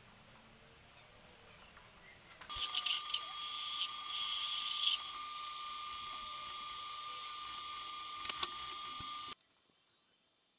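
Metal lathe running while a center drill in the tailstock chuck cuts into a brass insert in the end of an aluminium bar: a steady whine with higher squealing from the cut. It starts abruptly about two and a half seconds in and stops abruptly near the end, leaving a fainter steady high whine.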